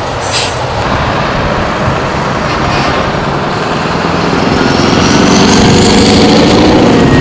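Scania R-series V8 truck accelerating out of a roundabout and past, its diesel engine getting louder and climbing in pitch, with a rising whistle over it. A short hiss comes near the start.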